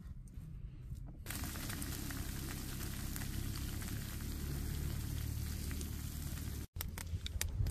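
Food sizzling in a frying pan over an open campfire: a steady hiss that starts abruptly about a second in and cuts off suddenly near the end.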